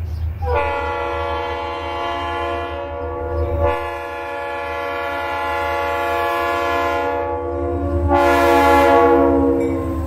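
Air horn of a Norfolk Southern diesel freight locomotive sounding long blasts, several notes at once, over the low rumble of the locomotives' engines. A new blast begins about three and a half seconds in, and a louder one comes near the end.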